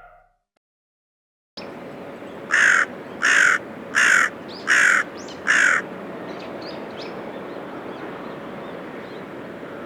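A bird's harsh call, given five times in a row about three-quarters of a second apart, over a steady outdoor background hiss that starts after a short silence.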